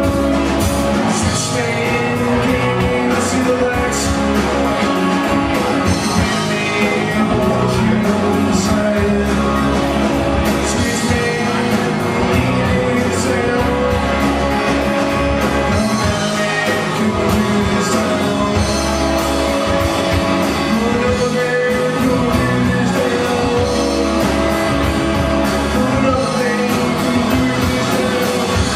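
Live rock band playing: electric guitar, bass guitar and drum kit, with a man singing the lead vocal.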